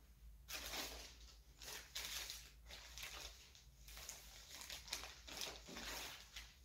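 Plastic packaging bag crinkling and rustling in irregular bursts as a clothing parcel is unwrapped by hand.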